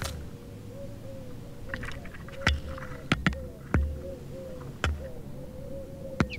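Arabian babblers pecking at the camera, their beaks knocking sharply on it about six times at uneven intervals.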